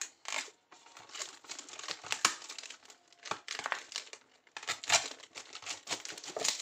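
Thin plastic drink bottle crinkling and crackling as it is handled, in irregular bursts, loudest about two and five seconds in.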